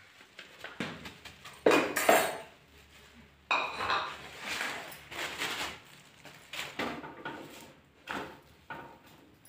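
Steel dishes and utensils clattering and clinking as cookware is handled, with a loud cluster of knocks about two seconds in and a ringing metal clank about three and a half seconds in.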